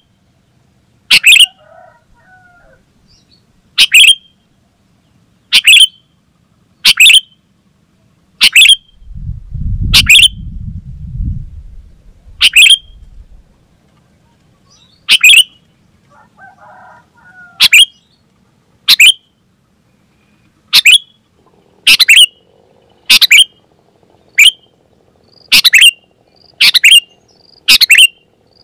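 Sooty-headed bulbul calling in short, sharp notes, one every one to two seconds and coming faster toward the end. A low rumble lasting about three seconds sits under the calls about nine seconds in.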